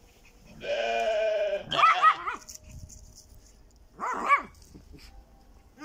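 A young Katum ewe bleats once for about a second, then a schipperke gives a quick run of high-pitched yaps. The schipperke yaps twice more about four seconds in.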